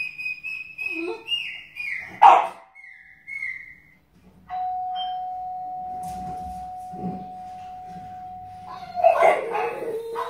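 French bulldog whining in a high pitch that steps up and down, broken by one sharp yelp about two seconds in. Then a steady ringing tone holds for about four seconds, and a dog barks near the end.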